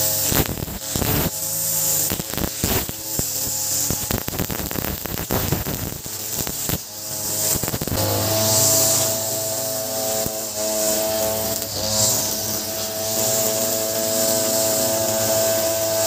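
Ogawa 26cc brush cutter running with a nylon trimmer-line head. For the first half the spinning line clatters against paving and stones with many sharp ticks. From about halfway it cuts grass with a steady high engine whine.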